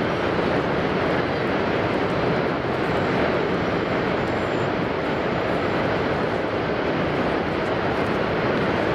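Steady rushing roar of Niagara's American Falls, water crashing onto the rocks at its foot.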